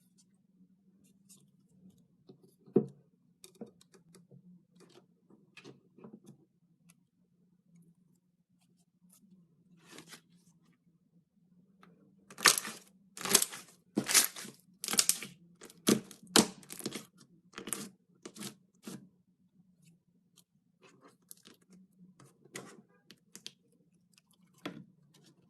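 Crunchy slime being squeezed and pressed, giving sharp crackling pops. The pops are scattered at first, come in a dense run of loud crackles from about halfway through, then thin out again, over a faint steady low hum.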